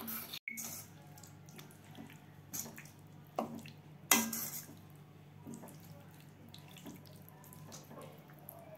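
Spoon stirring thick, oily citron pickle in a stainless steel kadai: soft wet squelching with a few sharper clicks of the spoon against the pan, the clearest ones about three and a half and four seconds in.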